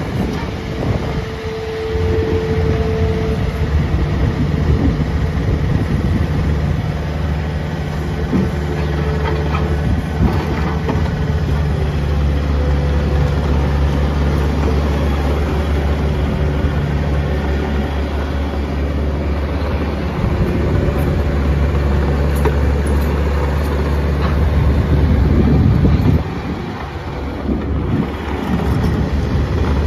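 Bobcat T300 track loader's 81 hp Kubota diesel engine running steadily. The engine note rises about two seconds in, dips briefly near the end, then picks back up.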